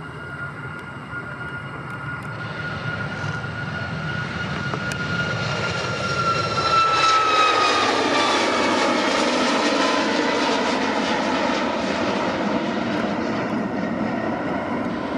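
Jet airliner passing close by. Its engine whine grows louder, then drops in pitch as the plane goes past about seven seconds in, leaving a steady rumble.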